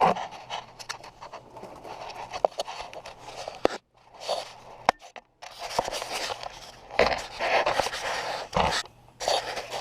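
Scraping and rustling with several sharp metallic clicks, from hands and tools working loose and turning hydraulic hose fittings.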